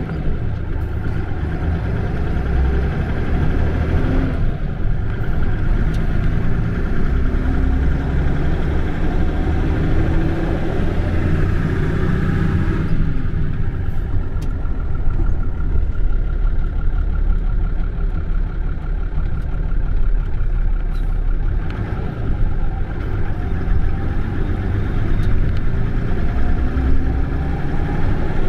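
Bus engine running under a steady low rumble, its pitch rising several times as it accelerates, with a thin steady whine for a while mid-way.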